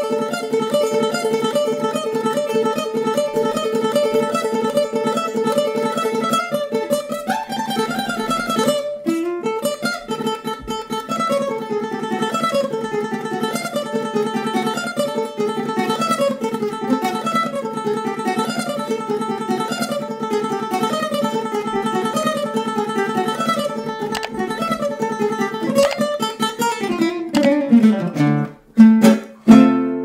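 Requinto, a small high-pitched nylon-string guitar, played solo: a fast, rapidly repeated picked passage for about nine seconds, then flowing melodic runs. Near the end a quick falling run leads into loud final chords that ring out.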